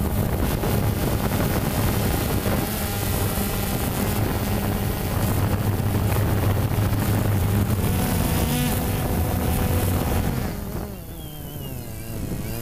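Camera drone's propellers and motors running steadily with a low hum. About ten seconds in the sound drops and the motor pitch slides up and down.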